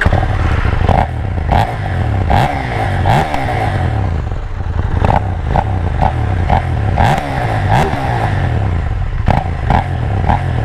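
2020 KTM Duke 790's parallel-twin engine on its stock exhaust, just started and running at idle while being revved in short throttle blips about once a second, the pitch rising and falling with each blip.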